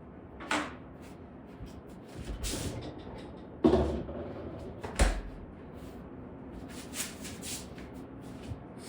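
Scattered knocks, clicks and scuffs of objects being handled and set down, the loudest a pair of thumps around the middle.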